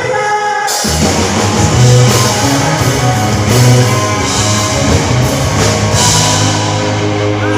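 Rock band playing loud, with drum kit, electric guitar and bass; the full band comes in about a second in after a quieter opening.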